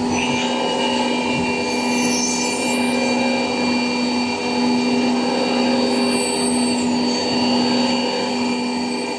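CNC milling machine running: a steady machine whine of several held tones over a noisy cutting hiss.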